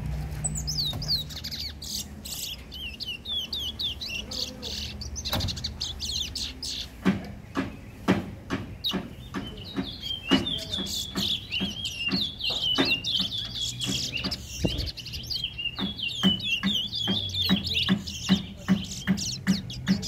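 Caged brown songbird singing long runs of rapid, high, sweeping chirps, one bout near the start and a longer one through the second half. A steady series of knocks sounds in the background from about a third of the way in, getting faster near the end.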